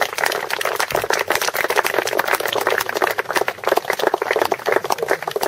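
A crowd applauding, with dense, irregular clapping that fades out right at the end.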